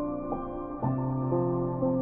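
Background music: a slow, gentle ambient piece of sustained notes, a new note coming in about every half second.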